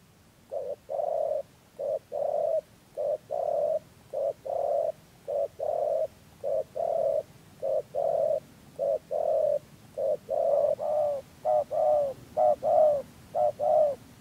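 Spotted dove giving its bowing coo, the 'gù' call: a short note followed by a longer one, repeated about a dozen times at roughly one pair a second. The notes become shorter and choppier near the end.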